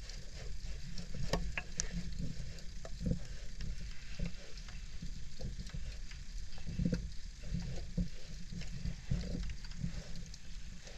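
Shallow seawater sloshing and lapping around a half-submerged GoPro camera's dome housing: a steady low rumble with many scattered crackles and ticks.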